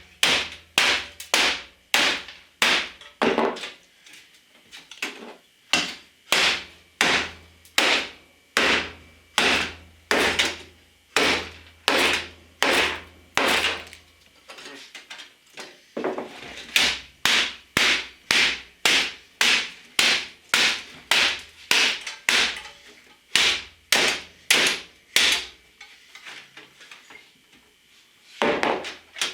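Hammer blows on a computer as it is smashed apart: sharp strikes, about two a second, in runs with a few short lulls of lighter hits between them.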